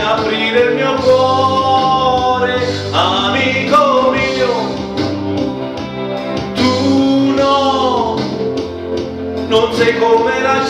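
A man singing through a microphone and PA over backing music, holding long notes that glide in pitch.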